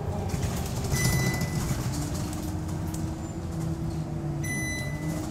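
Moving city bus heard from inside the cabin: steady engine and road rumble, with a low whine holding steady from about two seconds in. Two short electronic beeps sound, one about a second in and one near the end.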